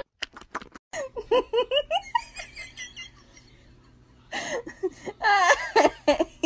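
A person laughing in quick repeated bursts, after a few short clicks; it goes nearly quiet for about a second, then louder laughter starts again about four seconds in.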